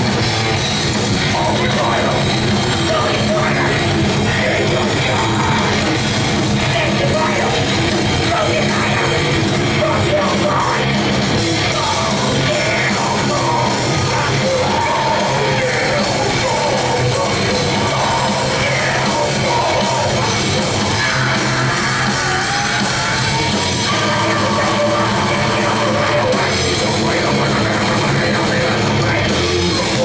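Live death metal band playing at full volume: distorted electric guitars, bass and drum kit under yelled vocals.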